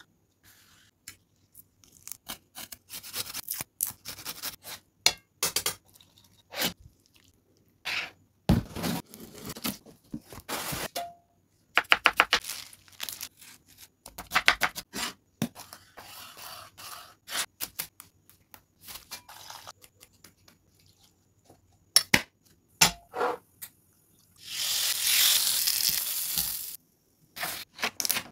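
Close-up food-preparation handling sounds: a metal spoon pokes through and tears the foil lid of a plastic curd cup, and a knife cuts a red onion, making scattered sharp clicks and scrapes with quiet pauses between them. Near the end comes a long tearing, crinkling rush of about two seconds from the eggs' clear plastic packaging.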